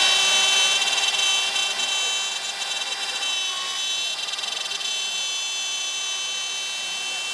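Shaper Origin handheld CNC router's spindle running with a steady high whine as its 1/4-inch bit cuts into wood. It is louder for the first two seconds or so, then settles a little quieter and steady.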